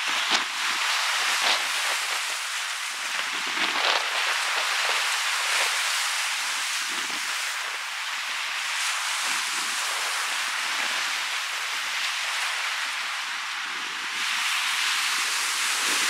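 Lake Huron waves breaking and washing up a sandy beach in a steady surf hiss, with the wind gusting across the microphone. The surf grows louder near the end as a wave runs up the shore.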